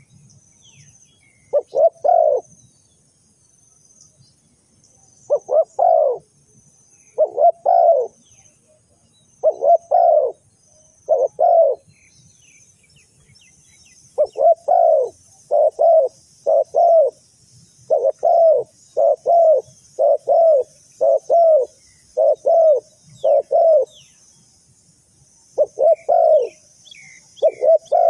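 Spotted dove cooing: short phrases of two or three quick notes, repeated in groups with pauses between, then a long unbroken run of phrases about one a second through the middle.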